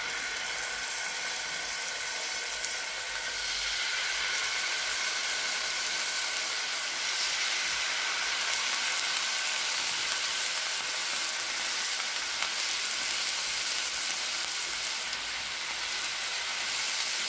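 Marinated chicken kebab skewers sizzling in oil on a hot flat tawa, a steady hiss that grows a little louder about four seconds in.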